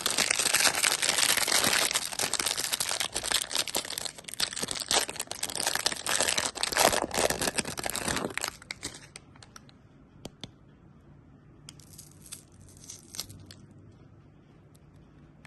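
Candy wrapper crinkling and tearing, a dense crackle for about eight seconds, then a shorter burst of crinkling near the end.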